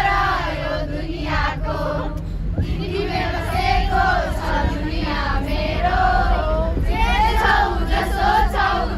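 A group of children singing together in sung phrases with held notes.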